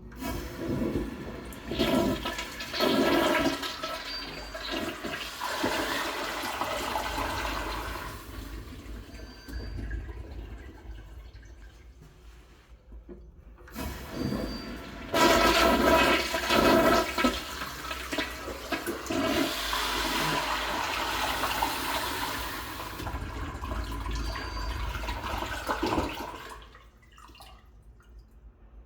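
Kyerim Yoeop C-557 toilet flushing twice. Each flush opens with a loud rush of water and settles into steadier running water for about ten seconds.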